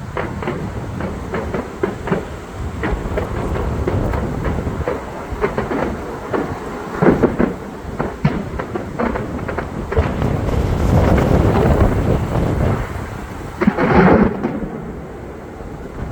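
Aerial fireworks going off: a dense run of bangs and crackles over a low rumble, with louder bursts about seven seconds in and near the end.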